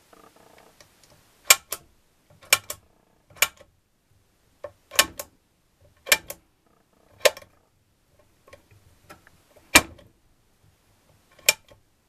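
Gear shift drum and selector fork in a Gilera Sport 150 gearbox turned by hand through its positions, giving sharp clicks about once a second, some in close pairs, as the drum drops into each gear.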